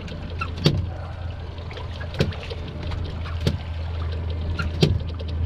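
Water slapping against a small boat's hull in four sharp knocks, about one every second and a half, over a steady low hum.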